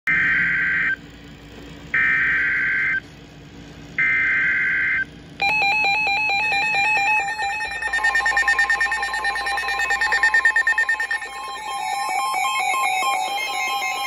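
Three one-second bursts of SAME digital header data screeching from a weather alert radio, then from about five seconds in several NOAA weather radios sounding their alarms together: fast-pulsing beeps over steady alert tones, signalling a received Severe Thunderstorm Warning.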